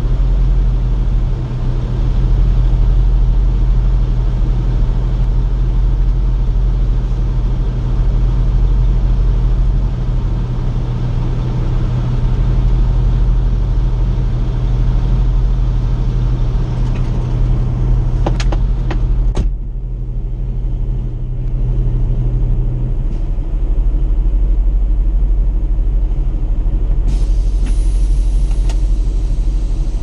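Semi-truck's diesel engine running steadily, heard from inside the cab. A few sharp clicks come about two-thirds of the way through, and a short high-pitched tone near the end.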